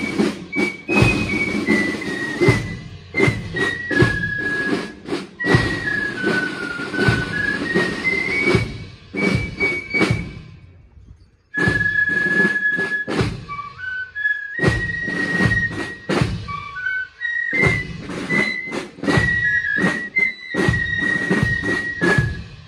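Marching fife and drum corps playing a march: transverse fifes carry a high melody in unison over snare drum strokes, with a brief break about halfway through before the tune picks up again.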